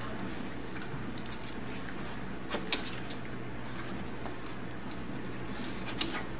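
Two dogs tussling in a fabric dog bed, with light metallic jingles and clicks of their collar tags in short scattered clusters.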